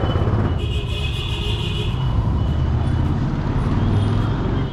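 Motor vehicle engine running steadily on the move, a continuous pulsing low rumble. A high-pitched tone sounds over it from about half a second in, for a little over a second.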